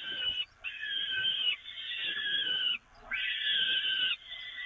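Downy peregrine falcon chicks begging for food: long calls one after another, with brief gaps between them.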